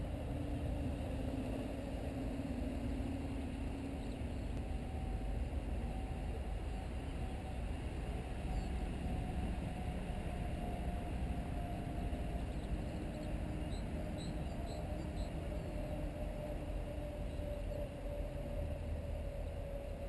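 Radio-controlled airboat's motor and propeller running, a steady low rumble with a faint hum that drifts slowly in pitch.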